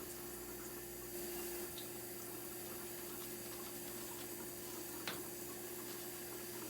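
Faucet running steadily into a sink while makeup brushes are washed, with a steady hum underneath and a light tick about five seconds in.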